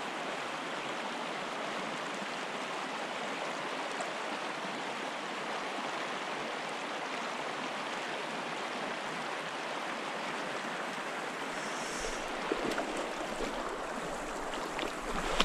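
Small creek running steadily over riffles, an even rushing of water, with a few faint knocks near the end.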